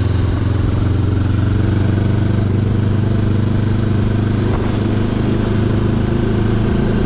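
QJ Motor SRT 700's parallel-twin engine running under way at a steady cruising speed, a loud, even drone with little change in pitch.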